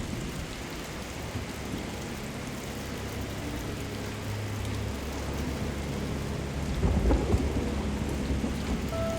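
Steady rain falling with a low rumble of thunder that swells about seven seconds in.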